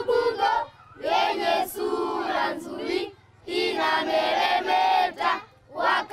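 A group of schoolchildren singing together outdoors, in long phrases with short breaks about half a second and three and a half seconds in.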